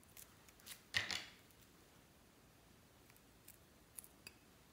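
A plastic piping bag filled with clear slime crackles briefly as it is handled, about a second in. Near the end come a few small sharp clicks as scissors close on the bag's tip to snip it open.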